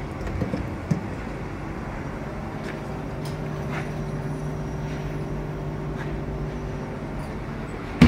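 Converted 12-volt camping fridge running: its replacement compressor and cooling fan make a steady low hum with a fainter higher tone. A sharp knock near the end.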